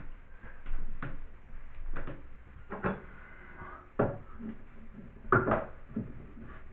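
A series of hard clacks and knocks, about half a dozen, as a bathtub tap-and-spout centrepiece is handled and test-fitted into place; the loudest come about four seconds in and a double knock near the end.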